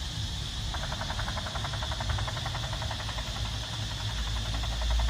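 Tonka Toughest Minis S.W.A.T. helicopter toy's sound module playing an electronic rotor-chop sound through its small speaker: a fast, even pulsing that starts about a second in, over a low rumble.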